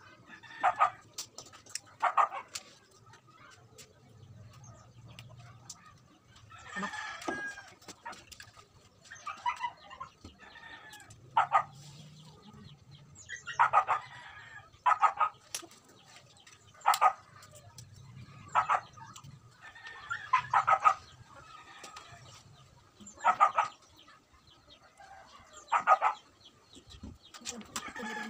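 Chickens clucking: a dozen or so short calls at irregular intervals, a few of them longer and more drawn out.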